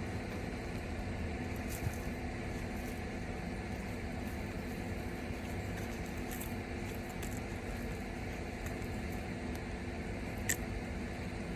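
Hands digging and rummaging through loose garden soil while harvesting sweet potatoes, with light rustling and scattered small ticks over a steady low background hum. One sharper click comes about ten and a half seconds in.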